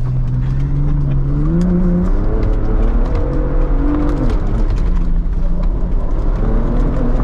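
Ford Bronco Raptor's 3.0 L twin-turbo V6 under throttle, heard from inside the cabin on a dirt track. The revs climb from about two seconds in and drop sharply at about four seconds as the 10-speed automatic upshifts from second to third, then hold steady. Scattered clicks and knocks sound over the engine throughout.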